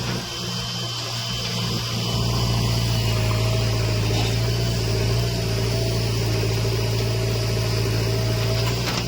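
Heavy diesel engine of construction machinery running steadily, with a thin wavering whine over the low hum. The engine's low note dips at first and comes back a little louder about two seconds in.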